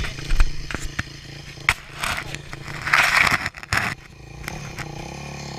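Knocks and gritty scraping right at a ground-level microphone on a dirt motocross track, with a loud rushing noise about three seconds in. From about four seconds in, a dirt bike's engine note grows steadily louder.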